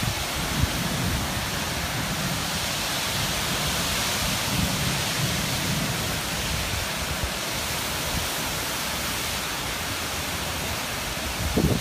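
Steady rain, an even hiss, with low rumbling on the microphone and a brief bump near the end.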